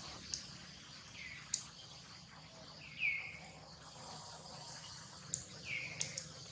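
Outdoor ambience of a steady insect drone, with a short descending whistled call that comes three times, and a few sharp clicks in between.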